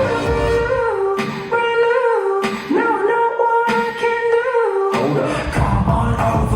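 Live pop song: a male vocalist sings long held notes over sparse backing while the drums and bass drop out, and the full band beat comes back in about five seconds in.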